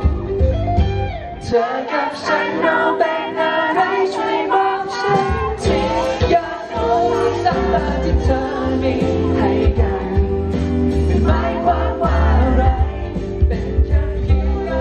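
A male singer sings a Thai pop song live into a handheld microphone over backing music with guitar. The bass drops out for a few seconds about a second and a half in, then comes back.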